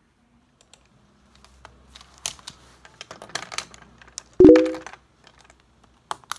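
Papers and pens being handled on a desk: light rustling and small tapping clicks, one louder knock with a brief ring about four seconds in, and two sharp clicks near the end.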